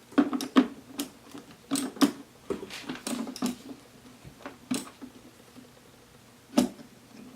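Plastic clicks and knocks as the hose end of a reverse hair dryer is pushed into its base unit and worked into place. The knocks come irregularly, with a sharper one near the end.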